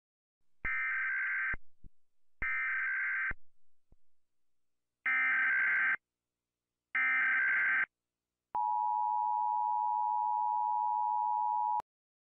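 Emergency Alert System tones: four bursts of SAME header data about a second each, the first two trailing off in a short echo, then the steady two-tone attention signal for about three seconds, cutting off suddenly.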